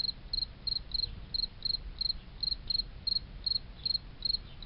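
Insect chirping: short high-pitched chirps at an even rhythm of about three a second.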